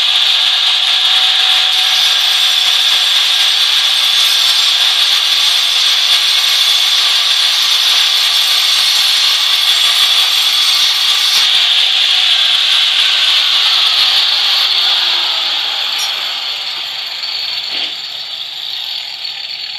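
Handheld angle grinder cutting into a concrete wall, a loud, steady high whine with grinding rasp, chasing the recess and conduit groove for a light switch box. About fifteen seconds in, it gets quieter for the last few seconds.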